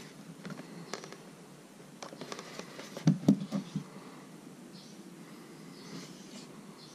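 A cardboard product box being handled and turned in the hands: light scrapes and taps, with a cluster of louder knocks about three seconds in.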